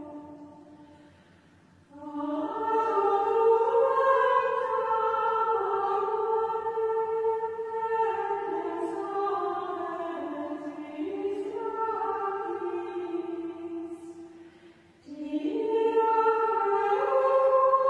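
Choir of Benedictine nuns singing Gregorian chant in unison. A phrase dies away at the start, a new phrase begins about two seconds in, and after a short break about fifteen seconds in the next phrase starts.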